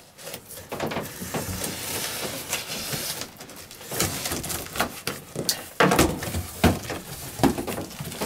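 Packing tape being torn off a large cardboard box and the box's cardboard flaps being pulled open: continuous ripping, scraping and rustling, with several sharp knocks of cardboard in the second half.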